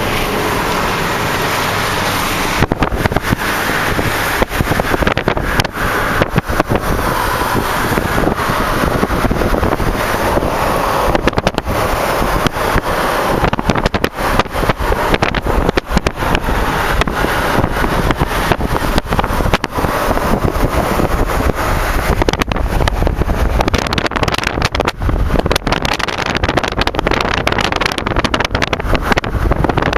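Car driving at speed, heard from inside: a steady loud rush of wind and road noise with constant gusty buffeting on the microphone.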